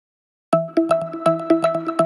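Background music with a quick, steady beat over held synthesizer-like notes, starting about half a second in.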